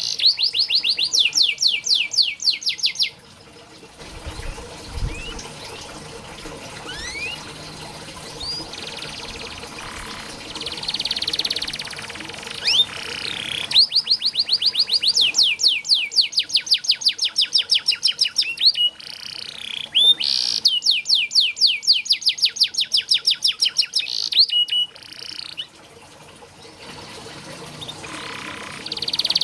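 Domestic canary singing: fast trills of rapidly repeated high notes, broken by quieter passages of scattered chirps and short rising whistles.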